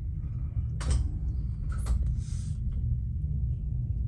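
Low, steady rumble of a passenger train heard from inside the carriage as it rolls slowly past a station, with two brief clicks about a second apart and a short hiss just after the second.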